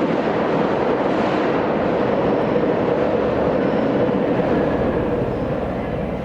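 Fukuoka City Subway train running, a steady rumble and rail noise that eases slightly near the end.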